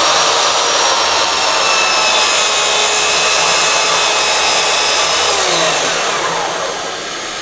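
Jemar 165 mm plunge track saw running at full speed with a steady high whine as it travels along its rail, its thin 48-tooth blade cutting through a green HMR board. About five and a half seconds in the saw is switched off and the motor winds down, its pitch falling.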